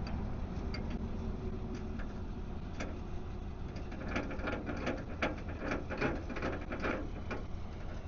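A steady low engine rumble with a run of rapid mechanical clicking and rattling from about four to seven seconds in.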